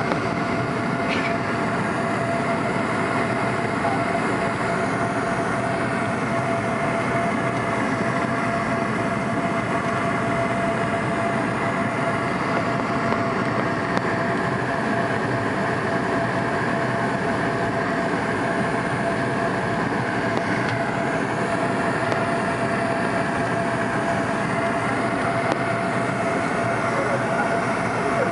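Steady cabin noise of a McDonnell Douglas MD-88 airliner in flight: the even rush of its rear-mounted Pratt & Whitney JT8D turbofans and airflow, with a steady hum tone running through it.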